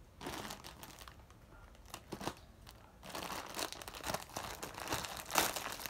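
Plastic mailer bag crinkling as it is cut open with scissors and handled, in irregular rustling bursts, the loudest near the end.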